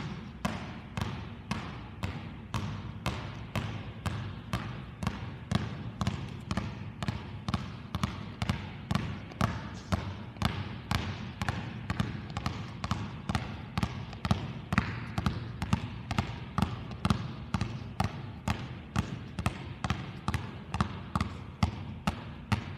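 Two basketballs dribbled on a hardwood gym floor, bouncing in a steady rhythm of about two bounces a second.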